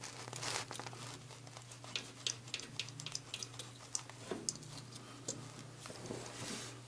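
Scattered light clicks and ticks of a screw and small metal parts being fitted by hand at a burner's wiring box, over a steady low hum.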